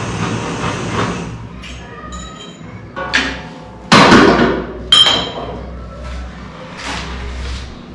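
Metal knocks and clinks on a jeweler's workbench: three sharp strikes about three, four and five seconds in, the middle one the loudest, with a brief metallic ring after the last. A steady rushing noise fades out about a second in.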